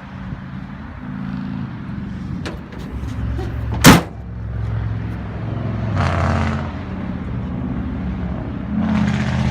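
A vehicle running steadily in the background, with one sharp, loud slam about four seconds in and two swells of rushing noise later.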